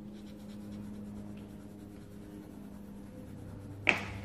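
Coloured pencil scratching on paper as it shades in a drawing, over a steady low hum, with one sharp click near the end.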